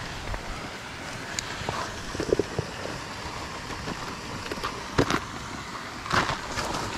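Damp groundbait and pellet mix being worked through a mesh riddle into a plastic bait bowl: soft rustling and scraping, with a few sharp knocks, the clearest about five seconds in and just after six seconds, over a steady background rush.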